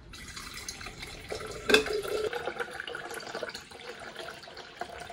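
Water dispenser running a stream of water into a metal-rimmed tumbler as it fills. There is one sharp knock a little under two seconds in.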